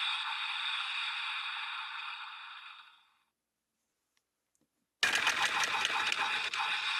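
Electronic transformation music and sound effects from a Kamen Rider Gavv DX transformation belt toy's small speaker, thin with no bass, fading out about three seconds in. After a short silence, a loud, fuller sound with a fast regular pulse starts abruptly about five seconds in.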